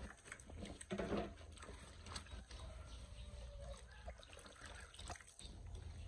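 Faint water trickling and splashing from hand washing, with a few light knocks.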